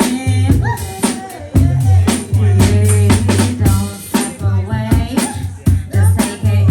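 Drum kit playing live, snare and bass drum strikes over a deep, heavy bassline, in the Bristol sound style.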